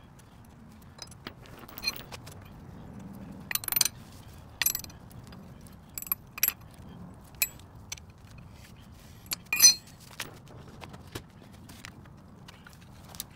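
Steel hand tools clinking against the front wheel hub and axle nut as a wrench is fitted and worked on the nut: a dozen or so short, sharp metallic clinks and taps at irregular intervals, the loudest near the two-thirds mark.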